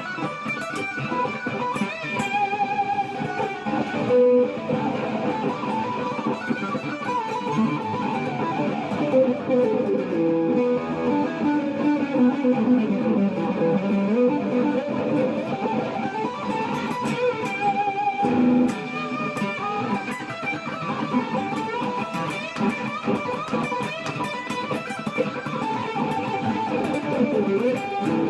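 Improvised electric guitar playing on a Vanzandt STV-R2 through a Fulltone Octafuzz octave-up fuzz pedal into a Roland Micro Cube amp. It is a continuous melodic lead line, with a long run that falls and then climbs back near the middle.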